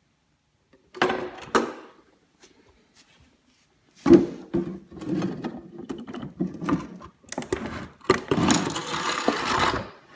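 Parts of a toy electric ATV's wheel and axle assembly being handled and fitted, plastic and metal knocking and rattling. A short burst of clatter comes about a second in, then a longer run of knocks and scraping that is loudest near the end.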